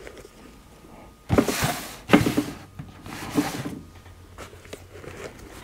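Handling noise from a half helmet's fabric interior being pulled and rubbed: two bursts of rustling and scraping, about a second in and again at three seconds, with a couple of light knocks.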